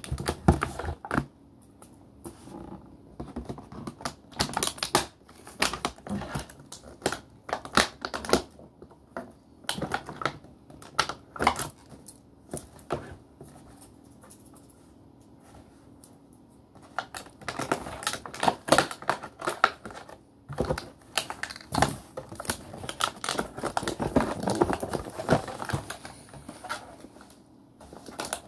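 Plastic toy pieces and packaging being handled: irregular clicks and taps mixed with rustling, thinning out for a few seconds around the middle.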